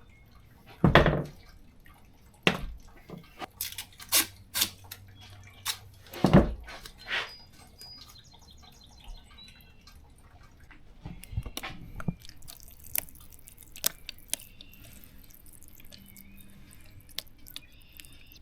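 Irregular taps, clicks and a few louder thumps of seed-starting trays and potting soil being handled while seeds are covered with dirt.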